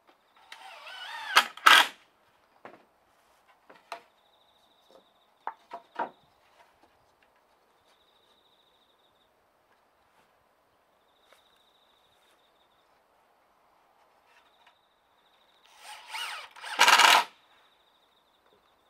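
A power tool motor running in two short bursts, one about a second in and another near the end, its pitch gliding as it spins up. Between them come a few small knocks and a faint high trill that comes and goes, like an insect.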